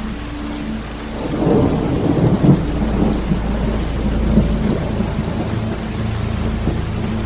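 Rain falling steadily, with a roll of thunder that swells about a second in and rumbles away over the next few seconds.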